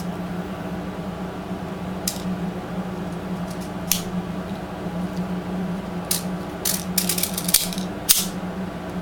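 Small BB pellets clicking and rattling as they are loaded by hand into a BB gun: scattered short clicks, bunched together about six to eight seconds in, over a steady low hum.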